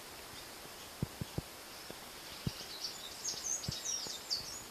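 Quick, high chirps of a bird over a steady hiss, in a run of calls from about halfway through to near the end, with a few soft ticks scattered throughout.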